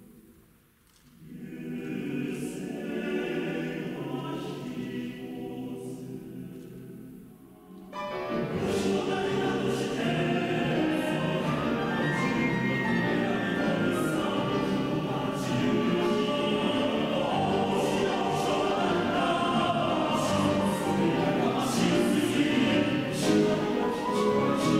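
Choir singing with piano accompaniment. A quieter passage switches abruptly to a louder, fuller passage about eight seconds in.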